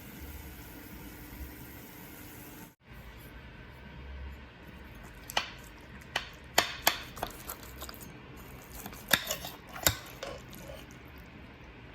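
A metal utensil clinking and scraping against a dish, several sharp clinks in the second half, over a steady low room hum.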